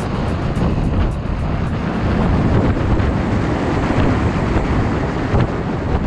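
Wind buffeting the microphone: a loud, steady rumble.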